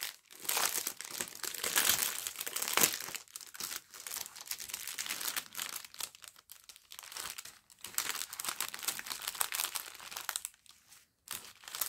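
Thin clear plastic wrapping and small zip-lock bags of diamond-painting drills crinkling as they are handled and peeled apart, in an uneven series of rustles that ease off near the end.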